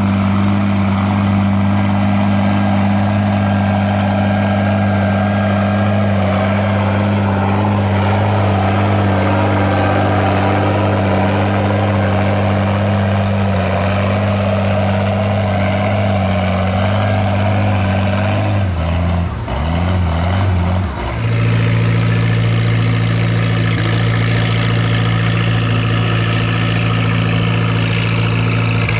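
Antique farm tractor engine running loud and steady; about twenty seconds in its note wavers and dips briefly, then settles back to a steady run.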